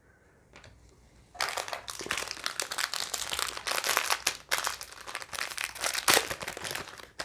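Trading card pack wrapper crinkling and rustling as it is handled and torn open, starting about a second and a half in after near silence.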